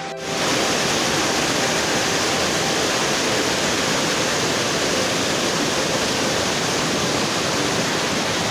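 Steady rushing of a mountain river's water over rocks, starting abruptly just after the start.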